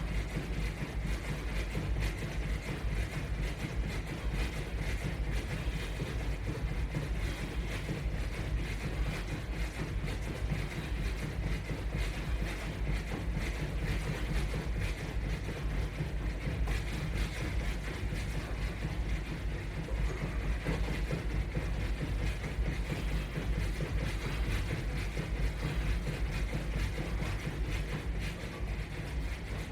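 Continuous low thudding and rumble of feet jogging in place against a resistance band, steady throughout with no pauses.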